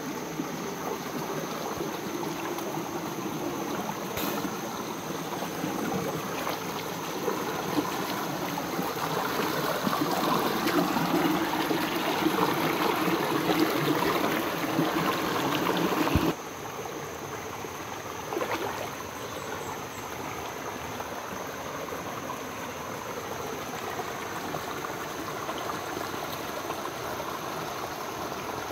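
Shallow rocky stream running and rippling over stones and boulders, a steady rush of water. It swells for a while and then drops suddenly to a lower, even level a little past halfway.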